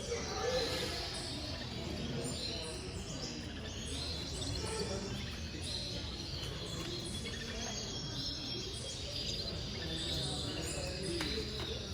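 Many caged canaries chirping and twittering, short high calls scattered throughout over a steady low room hum.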